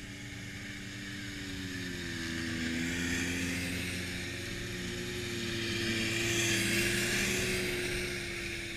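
Small Kitty Cat youth snowmobile engines racing, a steady drone whose pitch bends as they accelerate through the turn. It grows louder as machines pass about three seconds in, and again, loudest, around six to seven seconds.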